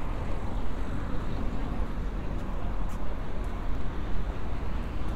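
Steady road traffic noise at a city junction: a continuous low rumble of passing vehicles.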